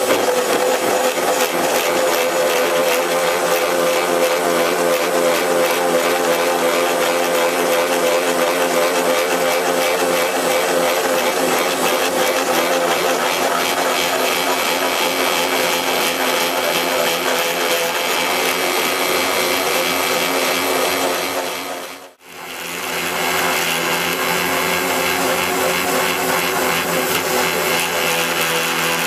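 Hydraulic magnetic drill running a water-cooled annular cutter through steel plate: a steady machine whir with metal-cutting noise. The sound drops out sharply about three-quarters of the way through, then the drill is heard running again.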